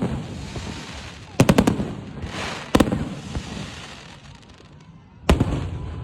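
Aerial fireworks bursting: a sharp bang at the start, a quick run of three bangs about a second and a half in, a short hiss and then another bang, and a cluster of bangs near the end, each trailing off in a low rolling echo.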